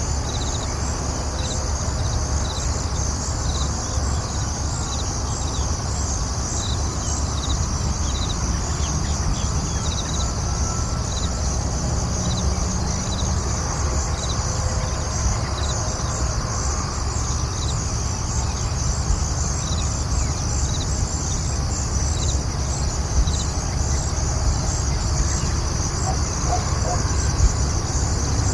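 Farm morning ambience: insects chirring steadily in a dense high trill, over a constant low rumble, with a few faint bird calls.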